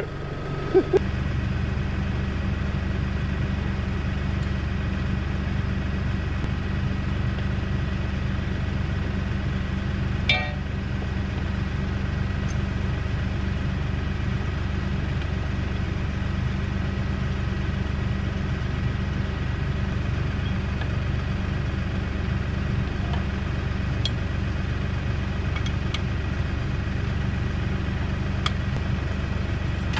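LS compact tractor's diesel engine idling steadily, with a few faint clicks over it.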